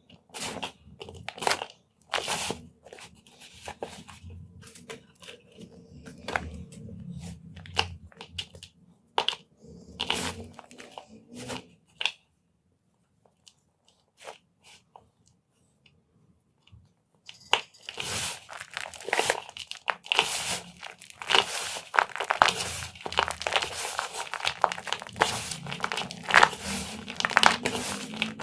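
Blocks of yellow gym chalk being crushed, a run of sharp crunches and snaps as they break and crumble. The crunching nearly stops for about five seconds around the middle, then comes back denser and louder for the last ten seconds.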